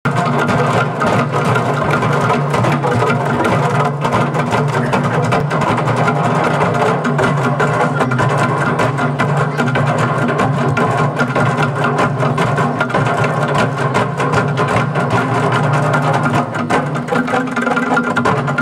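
A percussion ensemble playing gagang, Amis bamboo tube percussion, with hand drums: a fast, steady stream of struck wooden strokes over sustained pitched notes.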